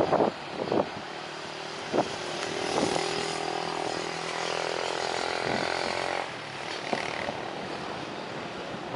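A motor engine passing close by with a steady buzzing hum for a few seconds, from about two seconds in until it drops away fairly suddenly past the middle. Wind buffets the microphone around it.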